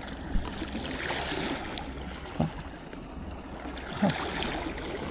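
Small waves lapping and washing against barnacle-covered shore rocks, over a steady low rumble, with three short thumps.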